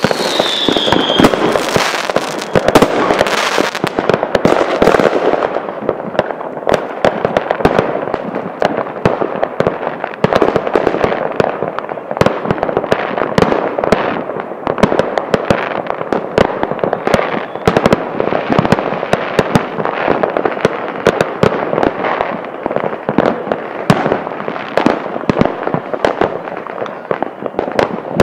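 Fireworks going off all around: a dense, continuous run of bangs and crackling from many rockets and firecrackers, near and distant. A falling whistle sounds in the first second.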